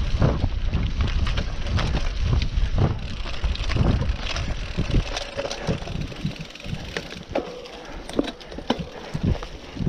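Cyclocross bike riding over leaf-covered forest singletrack: tyre noise on dirt and leaves with frequent rattling clicks and knocks from the bike over bumps, and wind rumble on the microphone that eases about halfway through.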